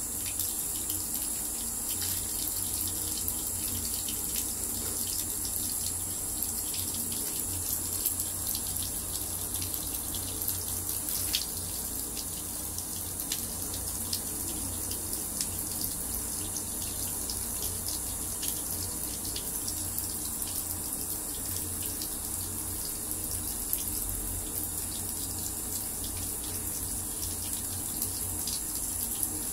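Water running steadily from a tap, with scattered faint clicks.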